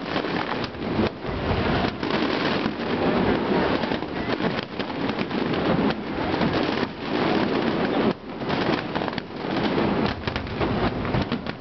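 Dense fireworks barrage: a continuous rumble of overlapping booms and crackles, with a few short lulls between volleys.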